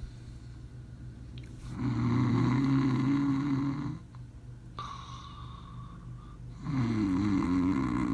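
Snoring: one long snore about two seconds in, lasting about two seconds, then another starting near the end.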